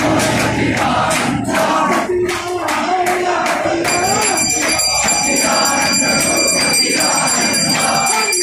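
A crowd of devotees chanting together in unison. About four seconds in, a bell starts ringing continuously over the chanting.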